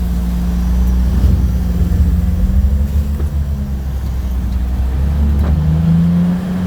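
Dump truck's diesel engine running steadily with a deep hum, its note shifting slightly a few seconds in and again near the end.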